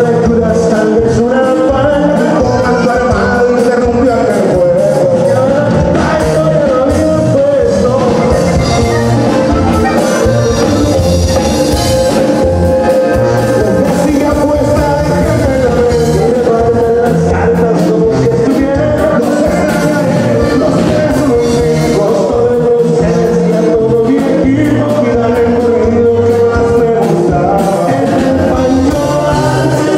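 Loud live norteño band music: button accordion, guitar and drums, with a male singer.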